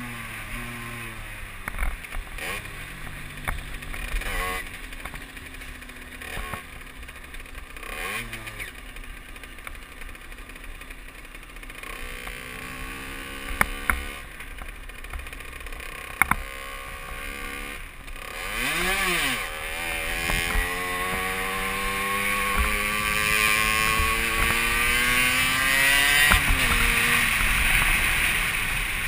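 Derbi Senda moped's engine running as it is ridden, with a quick rev up and down about two-thirds through, then pulling with steadily rising pitch for several seconds before dropping off near the end. Two sharp clicks midway.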